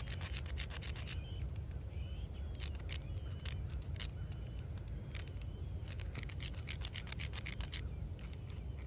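Small stiff detail brush scrubbing the carved lettering of a headstone, quick back-and-forth strokes coming in bursts, over a steady low rumble. Birds chirp faintly now and then.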